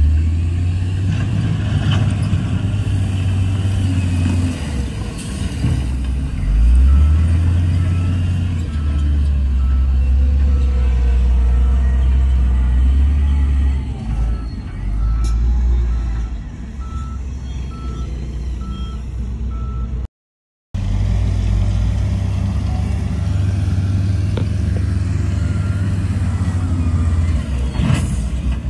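Heavy diesel engine of a wheel loader running and surging under load as it pushes fill, the low rumble swelling and easing several times. A reversing alarm beeps steadily through the middle and again near the end, and the sound drops out for half a second about two-thirds of the way through.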